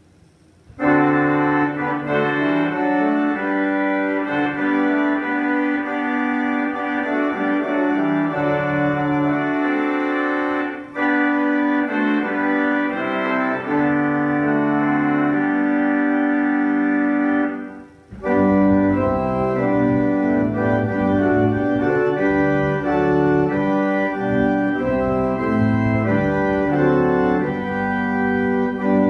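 Church organ playing a hymn tune in sustained chords, beginning just under a second in. It breaks briefly between phrases about eleven and eighteen seconds in, and after the second break a deep pedal bass joins.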